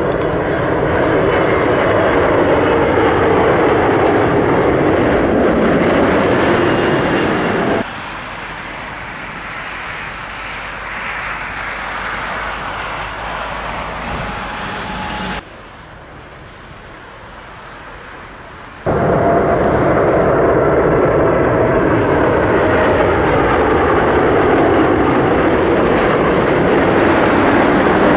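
Airliner engines loud on landing approach close by, a dense noise with a steady whining tone. The sound drops abruptly to a quieter level about 8 seconds in, drops again at about 15 seconds, and comes back loud at about 19 seconds, as at cuts between clips.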